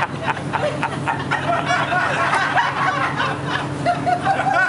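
A group of people chattering and laughing, with a steady low hum underneath.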